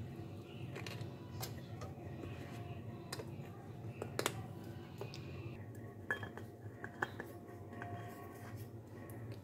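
A metal spoon clinking and scraping against a small glass jar and a steel strainer as dry powder is spooned in, with several sharp clinks, the loudest about four seconds in and a quick run of taps between six and seven seconds.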